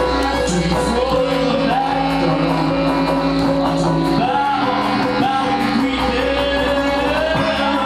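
Live band playing a rock song, with electric bass and violin under a singing voice.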